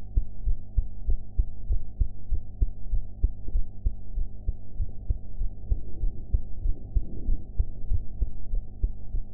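A young woman's heartbeat recorded at the chest: a regular lub-dub rhythm of muffled thumps over a low steady hum.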